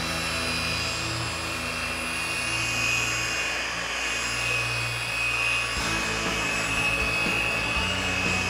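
Electric machine polisher running steadily with a high whine and low hum as its pad works cutting compound over the painted trunk lid, taking swirl marks out of the paint. The hum shifts slightly about six seconds in.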